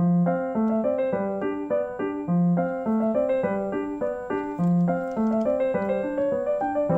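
Background piano music: a steady flow of quick, gentle notes over a lower note that comes back every couple of seconds.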